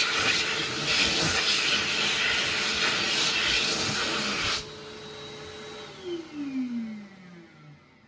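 Kuaierte K2008 hand dryer blowing loudly with a steady whine, then cutting out about four and a half seconds in; its motor whine holds briefly and then falls in pitch as it spins down.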